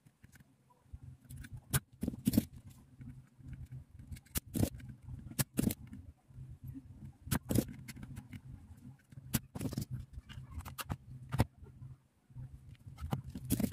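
A spring-loaded desoldering pump (solder sucker) snapping and clicking as it is cocked and fired over a circuit board, about nine sharp clicks at uneven intervals. A low steady hum runs underneath and drops out briefly near the start and about twelve seconds in.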